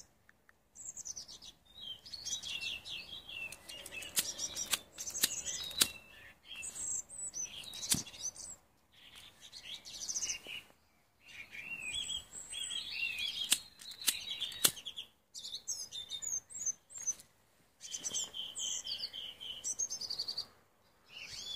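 Songbirds in the dawn chorus, chirping and twittering in bursts with short pauses between them, with a few sharp ticks among the calls.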